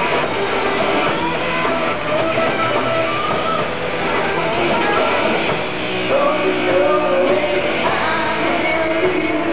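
Rock band playing live: electric guitar and drums playing a song together.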